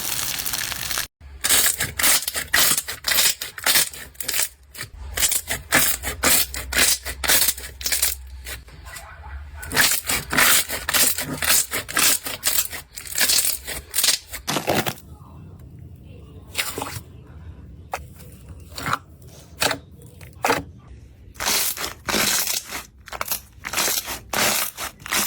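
Slime being squeezed, poked and pressed by hand: a fast, uneven run of sticky clicks, pops and crackles, breaking off briefly about a second in and changing to a sparser pattern about halfway through.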